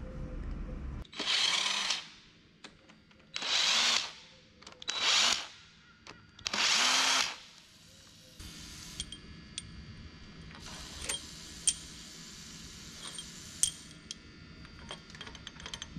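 Four hissing bursts of spray from an aerosol can of brake cleaner, each about a second long, in quick succession; after them, faint light metallic clicks and taps.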